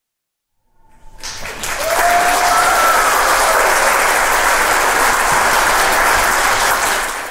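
Audience applauding, starting about a second in and building within a second to full, steady clapping that fades out right at the end.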